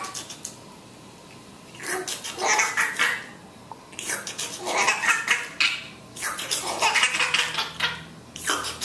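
An infant's wet slurping and gurgling as it mouths and chews its own hand, coming in four bursts of about a second each.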